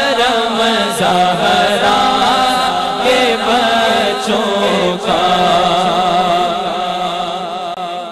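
Male voices singing an Urdu manqabat (Islamic devotional song) into microphones, with long, ornamented held notes over a steady low drone.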